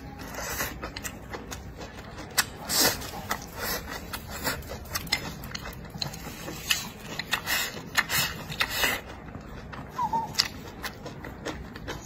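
Close-miked eating: slurping up strands of stir-fried bracken shoots and chewing them with pork belly, with wet mouth smacks and short clicks at irregular intervals.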